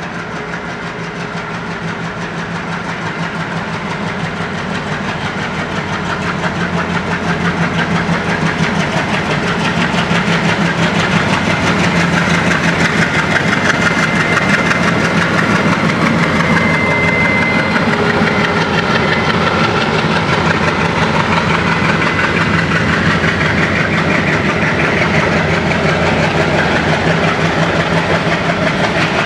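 Indian Railways ALCo diesel locomotive chugging as it approaches and runs past at close range. The sound grows louder over the first ten seconds or so, then holds steady as the locomotive and its train go by.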